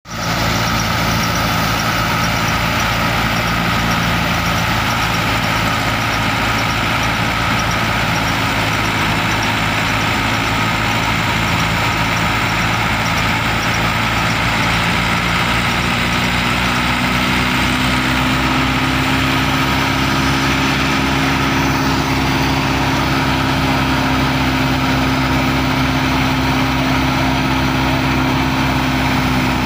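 Massey Ferguson 385 tractor's diesel engine running steadily, its pitch rising slightly from about halfway through.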